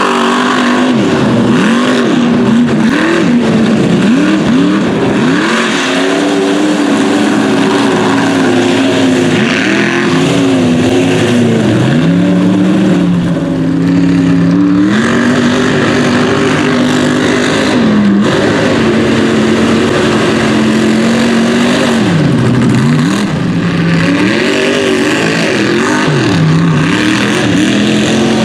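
Mega mud truck engines revving hard through a mud pit, the engine pitch repeatedly dropping and climbing again as the throttle is worked and the tyres churn.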